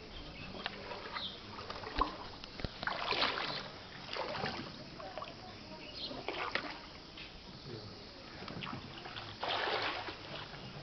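Feet wading through shallow floodwater and mud: irregular splashes and sloshes, with a couple of sharp knocks about two seconds in.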